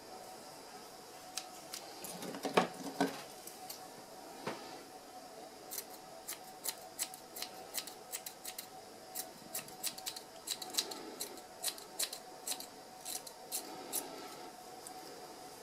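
Grooming scissors and thinning shears snipping through a dog's curly facial fur. A few scattered snips come first, with a louder cluster about two and a half seconds in. From about six seconds there is a quick run of snips, roughly three a second.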